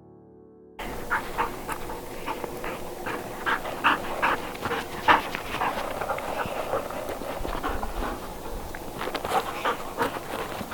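A dog panting quickly and steadily, right after a piano tune cuts off in the first second.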